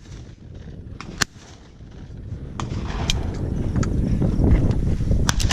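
A shotgun shot at a clay target about a second in, sharp and short, over a low rumbling noise on the microphone.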